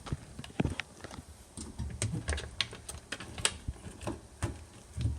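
Irregular light clicks and taps of small parts being handled, with a few dull low knocks around two seconds in and near the end.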